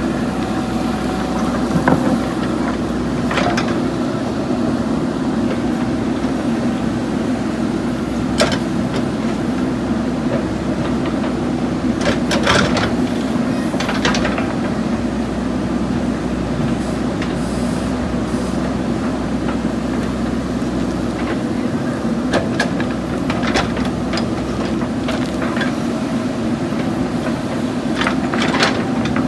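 JCB backhoe loader's diesel engine running steadily as the machine works, with a few sharp clanks now and then.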